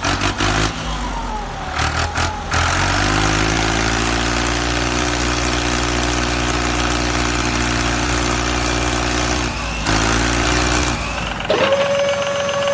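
Mini toy tractor or truck engine sound running steadily at an even pitch, shifting about ten seconds in; near the end a steady high tone starts.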